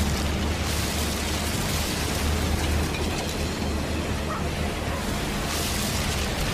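A steady, loud low rumble under an even hiss, with no distinct blasts or strokes.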